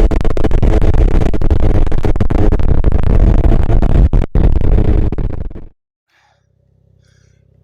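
Snowmobile engine running at speed, heavily buffeted by wind on the microphone. It cuts off suddenly a little over five seconds in, leaving only a faint low hum.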